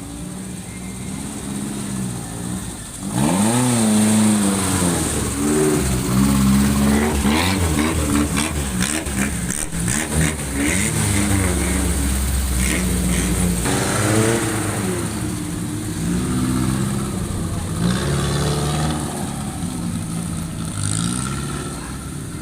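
Off-road vehicle's engine revving, its pitch rising and falling repeatedly. It gets much louder about three seconds in, with a deep rumble in the middle of the stretch.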